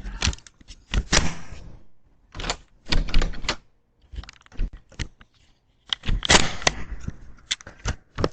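Someone banging hard on a front door with their fist, in repeated bursts of rapid blows.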